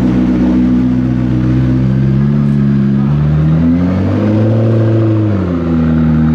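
McLaren P1's twin-turbo V8 running at a steady low pitch, then revved: the engine note rises about three seconds in, holds, and drops back down near the end.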